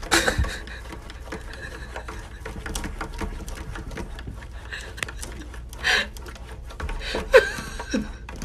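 A cat's paws tapping, batting and scraping rapidly against window glass, with a few louder knocks and a brief falling squeak near the end.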